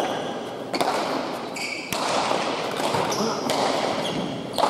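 A hard pelota ball struck by bare hands and hitting the walls during a rally: about five sharp smacks that echo in the hall, with short squeaks of players' shoes on the court floor between them. A crowd murmurs throughout.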